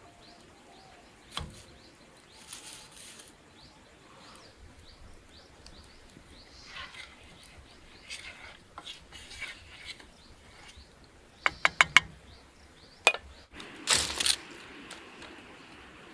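Birds chirping faintly in an outdoor setting, with a quick run of four sharp clicks a little past the middle, another click a second later, and a short rustling burst followed by a steady hiss near the end.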